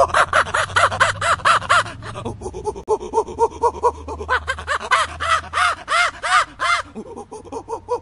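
Barbary macaque calling in rapid runs of short rising-and-falling calls, about five a second, in two bouts with quieter calls between; the second bout, past halfway, is higher and louder. A steady low hum lies underneath.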